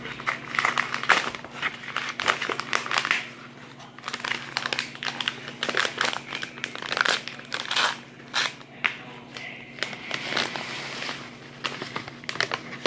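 A packet crinkling and rustling irregularly as it is handled and opened by hand, then tipped into a plastic mixing bowl near the end.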